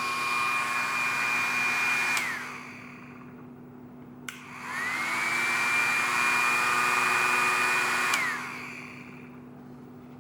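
1964 Braun HLD 231 hair dryer's fan motor running with a steady high whine, then clicked off about two seconds in and winding down. About four seconds in it clicks back on, spins up to the same whine, and near the end clicks off again and winds down.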